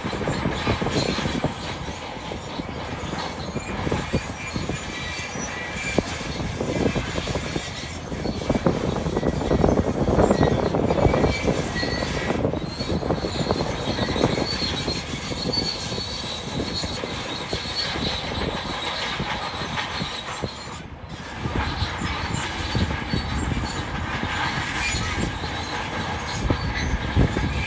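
Crawler bulldozer working: its diesel engine running under load, with a steady high squeal and clanking from the steel tracks.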